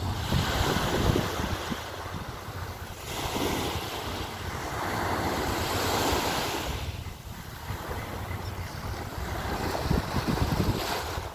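Small sea waves washing onto the shore, swelling and fading every few seconds, with wind buffeting the microphone in low gusts near the start and again near the end.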